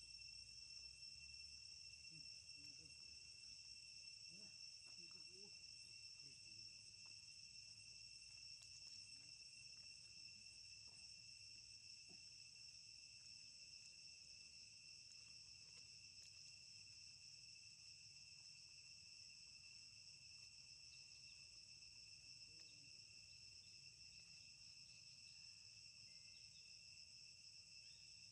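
Faint, steady insect chorus: a constant high-pitched drone in several even bands with no pauses. A few soft, faint rustles sound in the first few seconds.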